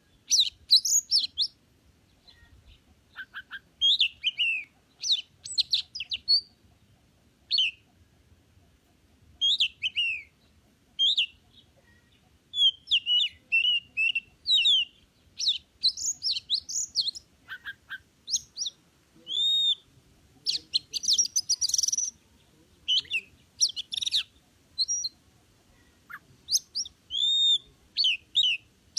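Oriental magpie-robin singing: a long run of short, varied whistled phrases and chirps with brief pauses between them, and a harsher, scratchy burst about two-thirds of the way through.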